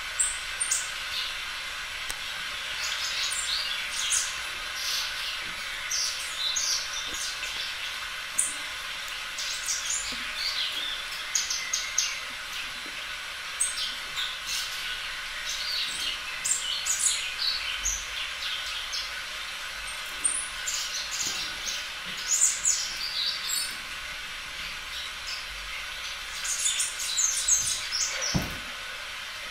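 Small birds chirping, many short high chirps coming irregularly over a steady hiss, with a low bump near the end.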